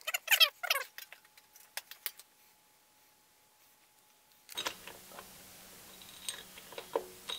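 Light metallic clicks and clinks from a hex key and loose bolts as the power drawbar's mounting plate is unscrewed from the milling machine head. A few short squeaky sounds come right at the start.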